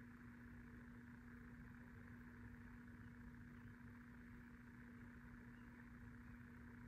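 Near silence: steady room tone with a faint, unchanging hum.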